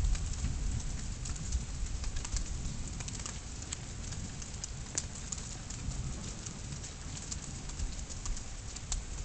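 Thunderstorm ambience: a steady low rumble with many scattered light ticks of raindrops.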